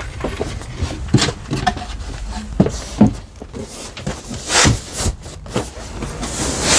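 Irregular knocks and thumps with some rustling as the dinette bench's seat board and upholstered cushions are handled and set back in place.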